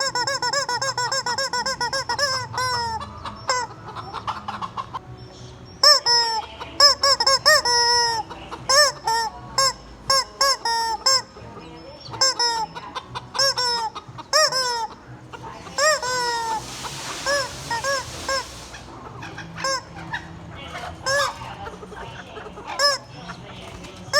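Rubber chicken squeeze toy honking over and over, each squeeze a rising-then-falling squawk: a quick run of them at the start, then irregular bursts of squeezes. A short rushing noise sounds about two-thirds of the way through.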